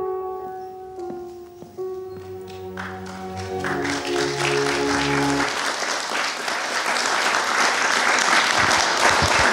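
Music with held chords closing out a film clip, fading out about five and a half seconds in, as audience applause starts about four seconds in and swells to fill the rest.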